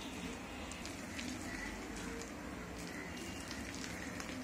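A hand beating thick urad dal batter in a bowl, mixing in the spices: faint, irregular soft squelches and ticks.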